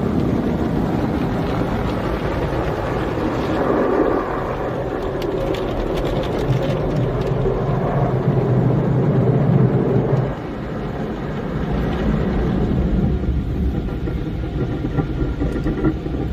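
Automatic tunnel car wash heard from inside the car: water jets and spinning cloth brushes work over the windshield and roof in a loud, steady wash of noise that eases a little about ten seconds in.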